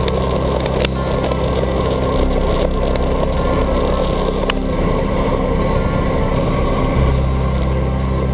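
Wind rush and tyre noise from a road bike riding a wet road, heard through a handlebar-mounted camera's microphone, over a steady low hum that shifts pitch near the end. A couple of sharp clicks come through, about one second and four and a half seconds in.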